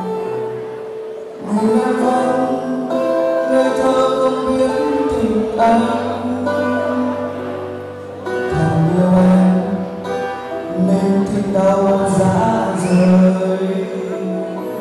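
Pop ballad backing music with a male singer singing live into a handheld microphone; the song moves in long held notes.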